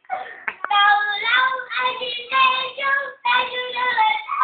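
A young boy singing a Vietnamese pop song, in short phrases with long held notes.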